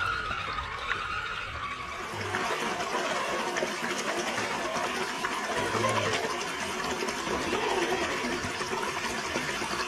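Water splashing and churning as a scale RC crawler truck drives through a shallow creek, with the thin whine of its electric motor falling in pitch over the first couple of seconds as it slows. After that, steady splashing and gurgling water with small clicks and knocks of wheels on stones and roots.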